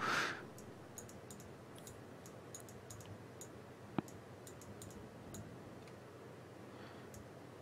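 Faint, sparse computer mouse clicks as handwriting is drawn and the canvas is scrolled on screen, with one sharper click about four seconds in.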